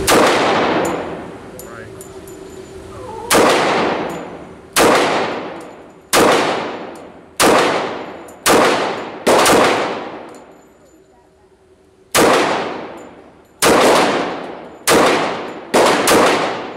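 HK USP 45 pistol firing .45 ACP, about a dozen shots at an unhurried, uneven pace with a pause of a few seconds partway through. Each crack is followed by a long echo fading away in an indoor range.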